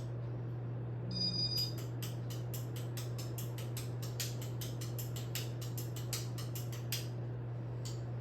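Casablanca Spirit of Saturn ceiling fan humming steadily. About a second in comes a short high beep, then a quick run of sharp clicks, about five a second, lasting some five seconds.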